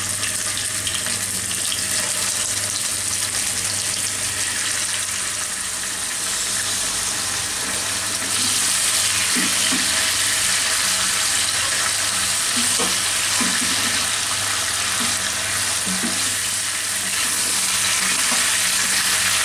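Marinated chicken pieces sizzling in hot oil in a karai, a steady hiss that grows louder about eight seconds in. A spatula stirs and turns the pieces a few times.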